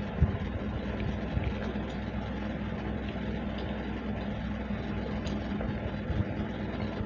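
A steady low hum runs throughout, with a few short soft knocks, the first about a quarter second in, as hands scoop rice and curry from plastic plates.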